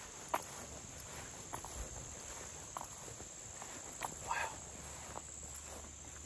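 Faint outdoor insect chorus, a steady high-pitched drone, with a few scattered soft footsteps through grass.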